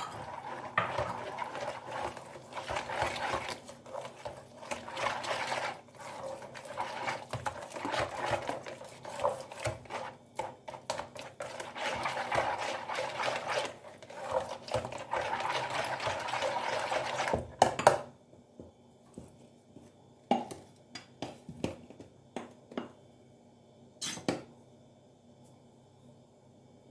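Wire coil whisk beating flour into a wet yeast batter in a plastic tub: rapid scraping and clicking of wire against the tub and through the batter, which stops abruptly about two-thirds of the way through. After that there are only a few scattered light clicks and knocks.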